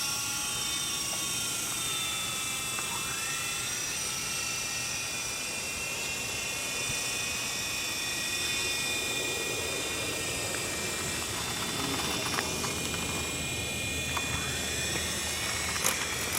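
Small remote-control helicopter's electric motor and rotors whining steadily as it hovers, the pitch drifting up and down with the throttle. A few sharp knocks come near the end.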